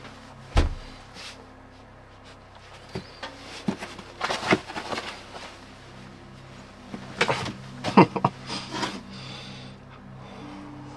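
Knocks and clatter of cooking things being handled and set down while a meal is prepared, several sharp knocks with the loudest about eight seconds in, over soft background music of held low notes.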